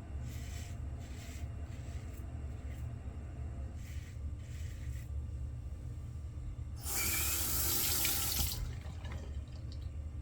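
Bathroom sink faucet turned on and running for about two seconds, starting about seven seconds in, over a steady low hum.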